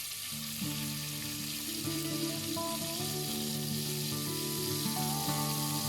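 Butter sizzling as it melts in a hot pot, a steady frying hiss. Background music comes in about half a second in.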